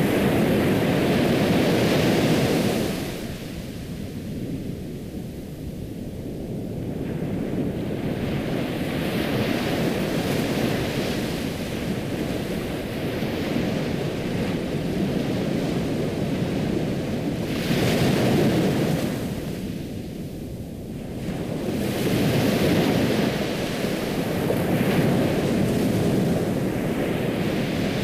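Ocean surf: waves breaking and washing up a shore in slow surges, each swelling and then falling back. The loudest surges come at the start, past the middle, and again near the end.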